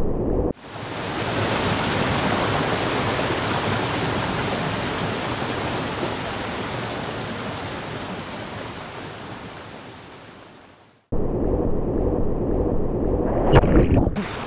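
Even rush of whitewater rapids that fades slowly over about ten seconds and then cuts out abruptly. Close, churning river water returns, with a couple of sharp splashes near the end.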